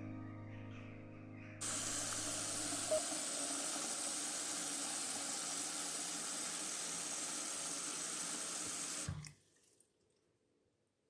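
Water running from a tap into a sink: a steady rush that starts abruptly about a second and a half in and stops suddenly near the end. The tail of piano music fades out under it at the start.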